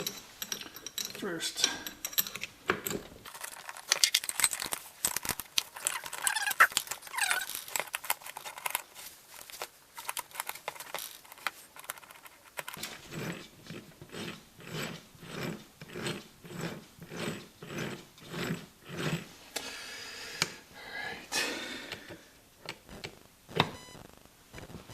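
Metal gearbox parts clicking and knocking as shifting forks are fitted into dirt bike engine cases, with a regular run of about two clicks a second in the middle.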